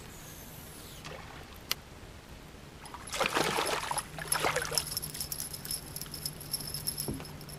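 A hooked bass splashing and thrashing at the surface as it is reeled to the boat, then the wire arms and blades of an umbrella rig jingling and clicking as the fish is swung aboard. A steady low hum runs underneath.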